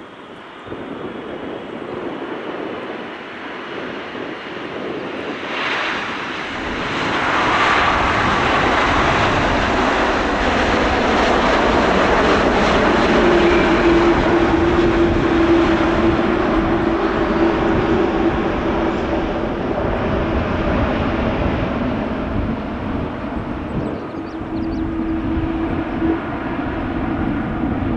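Boeing 777-300ER's GE90 jet engines running during the landing rollout just after touchdown, the noise rising sharply about six seconds in and staying loud before easing near the end. A steady hum-like tone sits in the noise through the middle and again near the end.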